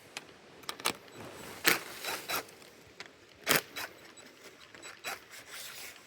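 Hands working with tools and pipe fittings: scattered short clicks and scrapes, with two louder knocks, the first near two seconds in and the second about three and a half seconds in.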